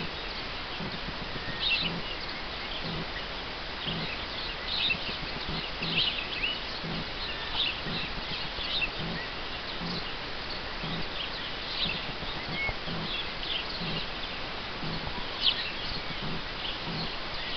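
Emu chicks peeping: many short, high whistled chirps scattered throughout. Underneath, a low pulse repeats about once a second.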